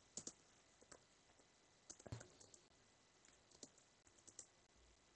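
Faint typing on a computer keyboard: a scattered handful of short keystroke clicks with pauses between them.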